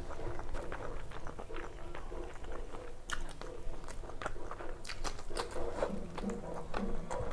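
Close-up chewing and crunching of fried food, with many irregular wet mouth clicks and crisp bites.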